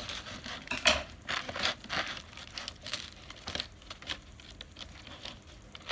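Packaging crinkling and rustling in the hands as it is worked open, with irregular crackles and small taps.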